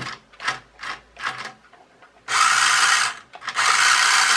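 Small electric drive motor of a wired remote-control toy car whirring loudly as its wheels spin in the air, in two runs a little apart, the first beginning just over halfway through, after a few short clacks near the start. The toy is being run on fresh batteries, and the motor running shows it works.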